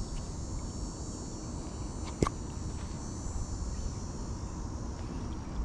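Steady high-pitched insect chorus of several held tones, over a low rumble, with one sharp click about two seconds in.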